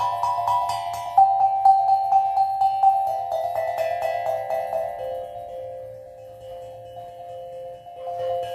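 Steel tongue drum played with quick repeated strikes, its bell-like notes ringing over one another. Past the middle the playing thins to a few notes left to fade, and fresh strikes come in near the end.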